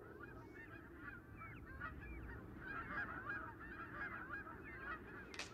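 A flock of geese in flight honking, many short calls overlapping in a continuous chorus.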